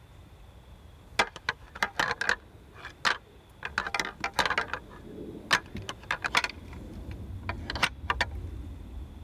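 A pair of deer antlers clacked and ground together in irregular bursts of sharp clicks, a rattling meant to imitate bucks sparring.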